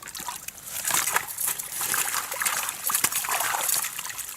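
Crucian carp being released back into the water, with irregular splashing and sloshing.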